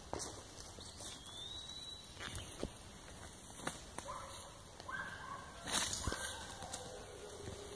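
Footsteps on forest leaf litter and twigs, with a few sharp snaps, the loudest about six seconds in. Birds call in the background, including a rising whistle early on and short repeated calls in the second half.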